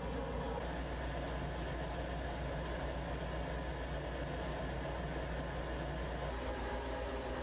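Steady low mechanical hum with a constant deep drone, unchanging throughout.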